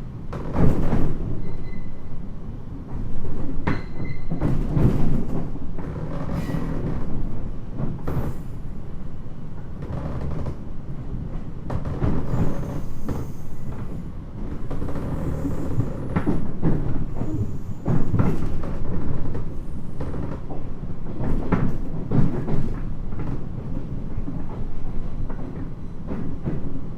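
Running noise inside a JR 719 series electric multiple unit, heard in the passenger cabin: a steady rumble broken by irregular clattering knocks and rattles from the wheels over rough track, with a faint high squeal in the first few seconds.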